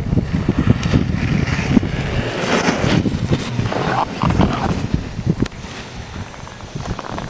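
Alpine race snowboards carving across packed snow, a hiss and scrape that swells as riders pass, strongest about two and a half and four seconds in. Wind buffets the microphone throughout with a low, gusty rumble.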